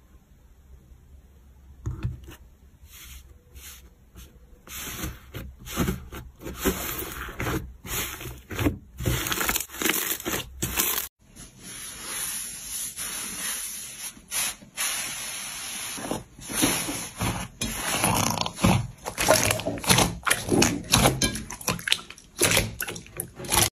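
Slime being pressed and squeezed by hand: a run of short, sticky squishing strokes. The strokes stop briefly about 11 s in, then come thicker and louder toward the end.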